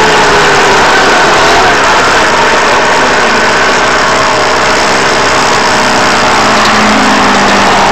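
Goped GSR25 scooter's small two-stroke engine with a new exhaust pipe, running steadily under way, loud and close to a camera mounted on the scooter.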